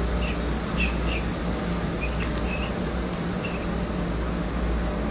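Steady hum and hiss of background noise, with several short, high chirps scattered through the first few seconds.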